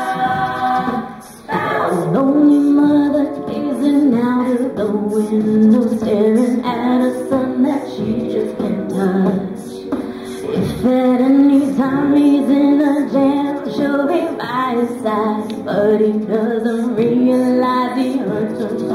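Mixed a cappella group singing, a female lead voice over backing voices holding chords. A held chord breaks off about a second in, and the singing picks up again after a brief pause.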